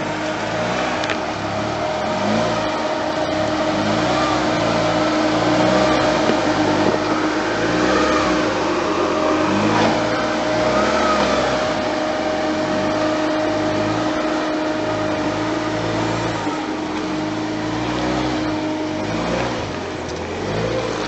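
SsangYong Korando KJ 4x4 engine revving up and down over and over as it works off-road, with a steady whine running underneath.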